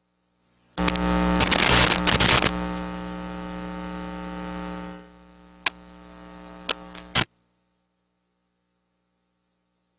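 Electrical mains hum and crackling static from an audio line or microphone feed. It comes on suddenly about a second in, crackles loudest for the next two seconds, drops to a quieter hum, then gives a few sharp clicks before cutting off suddenly.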